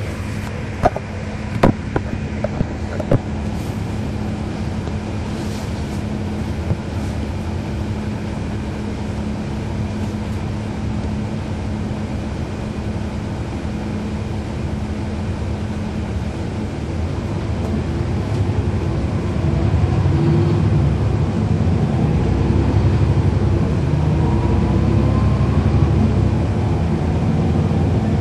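Cummins ISL9 inline-six diesel of a NABI 40-SFW transit bus heard from on board, running steadily with a few sharp clicks in the first seconds. About eighteen seconds in, the engine gets louder and rising tones climb as the bus accelerates.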